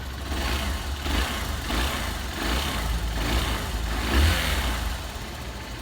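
Honda Bros 150 single-cylinder four-stroke motorcycle engine running, swelling up and down several times, with the faint chattering that remains after a valve adjustment: the mechanic puts it down to a worn valve.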